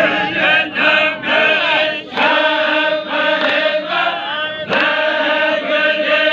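Men's voices chanting a Baloch chogan devotional song: shorter rising and falling phrases at first, then, from about two seconds in, long held notes with a short break a little before the five-second mark.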